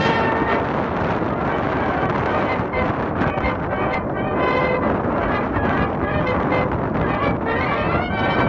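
Background music with brass instruments playing held notes.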